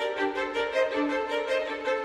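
Background music led by a fiddle playing a quick run of notes.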